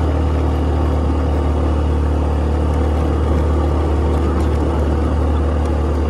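A two-wheeler's engine running steadily while riding along, with wind rushing over the microphone as a low, continuous rumble.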